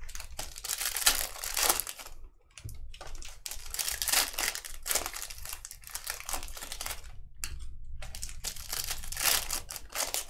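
Trading-card pack wrappers crinkling and tearing as packs are opened and handled, in three stretches of rustling with short pauses between.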